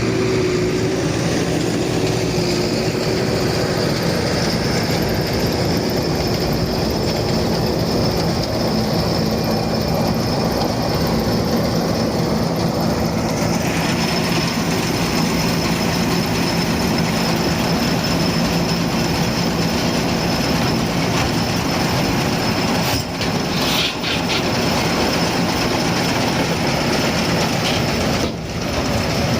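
Zetor Forterra 140 HSX tractor running steadily with a New Holland 648 round baler working behind it: continuous mechanical running noise with a constant high whine.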